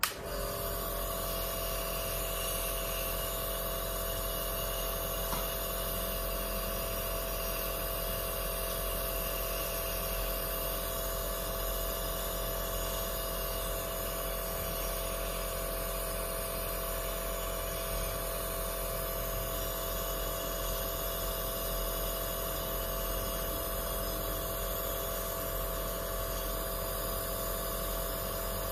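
Compressor nebulizer switched on and running: a steady motor hum with an even hiss of air and mist through the mouthpiece.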